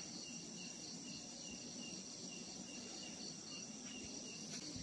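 Night insects, crickets among them, chirping: a steady high trill with a short, regular chirp repeating about two to three times a second.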